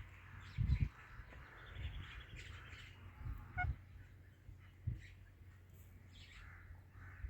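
Indian ringneck parakeet giving short chirps and squawks, on and off, with a few low thumps, the loudest about a second in.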